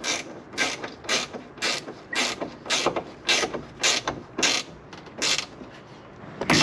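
Ratchet wrench tightening the nut on a battery's negative terminal, a short rasp of clicks on each swing, about two swings a second, stopping a little after five seconds in.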